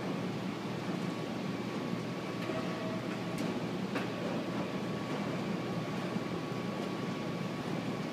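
Steady mechanical drone of a subway-station escalator running, with a faint constant whine and a few light ticks in the middle.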